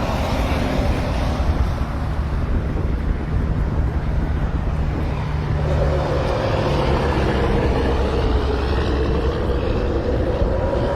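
Motor vehicle running, a steady low rumble mixed with road or wind noise; from about six seconds in an engine tone rises and falls.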